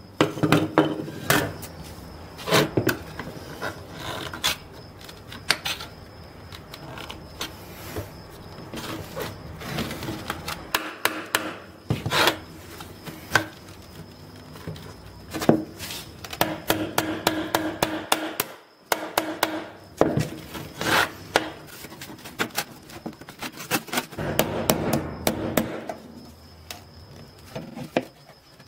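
Knocks and clatter of a rusty saw blade and metal hand tools (pliers, screwdriver) on a wooden workbench, with short runs of rapid tapping about halfway through and again near the end, as the blade and its folded metal spine are worked on.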